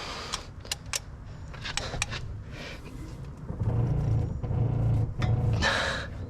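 Hand tools working the crankshaft pulley bolt: a torque wrench on its socket, with scattered sharp metal clicks and clinks and, in the second half, a run of low thuds. The wrench is turning the engine over instead of tightening the bolt.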